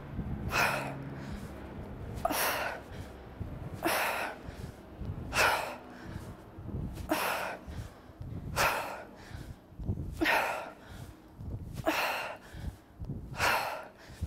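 Sharp, forceful breaths pushed out in a steady rhythm, one with each kettlebell swing, about every second and a half: nine in all.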